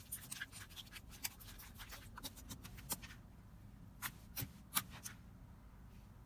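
Hands squishing and poking slime: faint, sticky clicks and pops at an irregular pace, with a few louder snaps.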